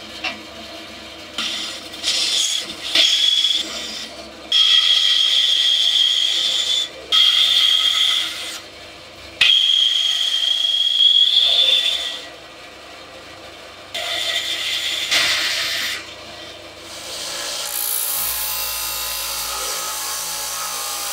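Bandsaw cutting through a block of wood in about five separate passes, a high steady whine with each cut and the saw running more quietly between them. Near the end a small belt sander runs steadily.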